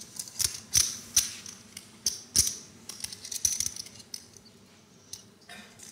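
Poker chips clicking against one another as a player handles his stack, a run of sharp clicks that thins out after about three seconds.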